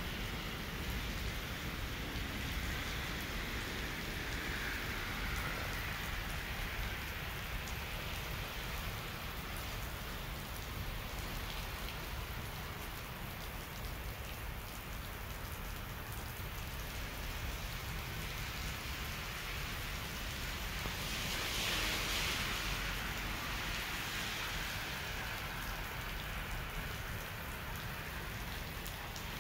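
Snow-melting pipe system (shōsetsu pipe) running: rows of small water jets spraying up from nozzles in the pavement and splashing onto wet asphalt, a steady spattering hiss that grows louder for a few seconds about two-thirds of the way through.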